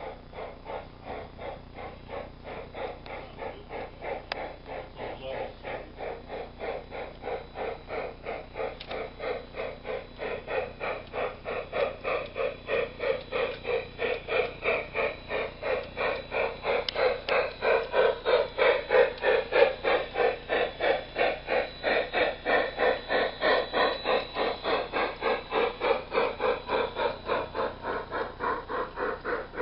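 Large-scale garden-railway model steam locomotive chuffing steadily at about three chuffs a second, growing louder as it draws near and passes, then fading slightly.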